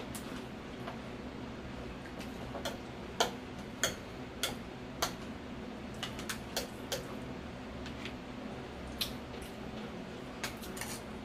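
Irregular sharp clicks and crunches of eating: metal forks tapping and scraping a glass baking dish as tortilla-chip nachos are scooped up, over a low steady hum.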